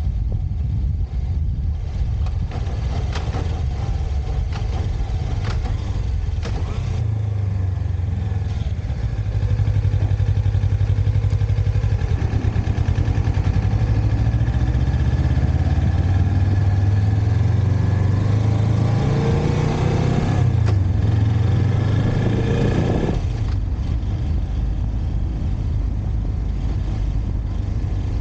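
Motorcycle engine running at low revs, then pulling away about seven seconds in: it gets louder and its pitch rises and falls through the gears for some fifteen seconds before easing back down near the end.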